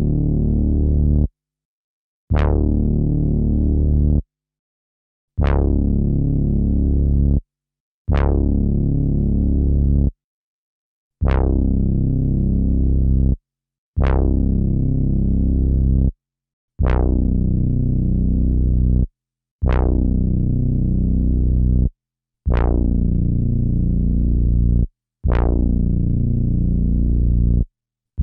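Akai MPC sampler playing a pitched instrument sample as about ten separate held notes of differing pitch, each about two seconds long, starting bright and mellowing, then cut off sharply, with short silences between.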